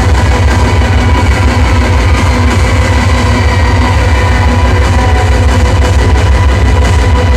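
Live drone metal and noise music: a loud, steady wall of sound with a heavy low rumble, several held tones above it and a dense hiss over all, with no beat or break.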